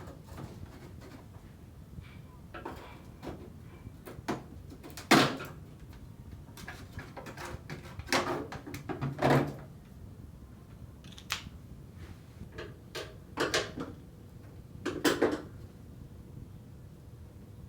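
Scattered knocks, clicks and clatter of panels and parts being handled as a front-load washing machine is taken apart, the sharpest knock about five seconds in.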